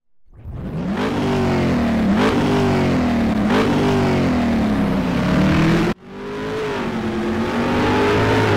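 Car engine accelerating hard through the gears, its pitch climbing and then dropping at each shift. It cuts off abruptly about six seconds in, then a second engine run starts up and holds a steadier pitch.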